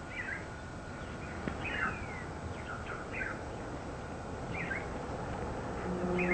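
A small bird calling with short, sharp chirps that fall in pitch, one every second or so, over a steady rush of breeze. Near the end a low, steady hum with several overtones sets in.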